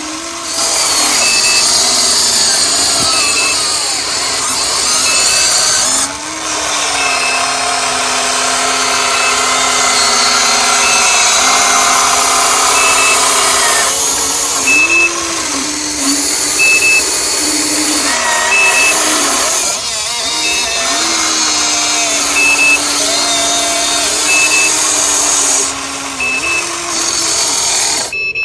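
Electric motors and gearboxes of radio-controlled construction models whining, rising and falling in pitch as the machines work, with a short high beep repeating about every two seconds.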